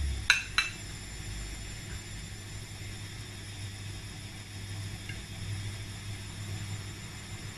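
A knife cutting into a baked cake on a plate: two light clicks a fraction of a second apart near the start, then a steady low hum and background hiss.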